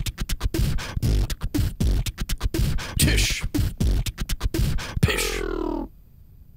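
Human beatboxing: a fast run of mouth-made kicks, snares and clicks as a breakdown beat. It ends a little after five seconds in with a falling pitched vocal sweep, then cuts off.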